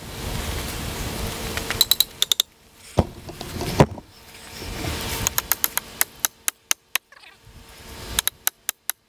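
Handling noise from a video camera being picked up and set down in a new position: rubbing and rustling on the microphone, with two knocks a few seconds in, the second the loudest. A run of short sharp clicks, several a second, goes on through the second half.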